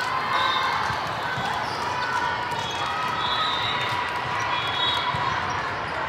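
Busy multi-court volleyball hall: a steady din of many voices echoing in a large room, with balls thudding on the floor and short high squeaks, likely sneakers, scattered through it.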